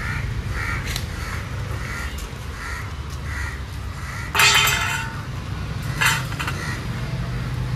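A crow cawing repeatedly, then a loud metallic clatter about four and a half seconds in and a shorter one at about six seconds, as a steel food bowl is set down on the ground.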